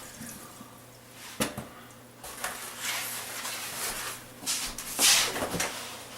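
Kitchen handling noises: a sharp knock about a second and a half in, then irregular scraping and shuffling, and a louder clatter about five seconds in.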